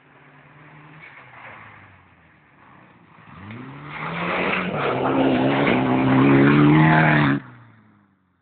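Rally car engine rising in revs as it accelerates toward and past the roadside, loud for about three seconds before the sound cuts off suddenly near the end.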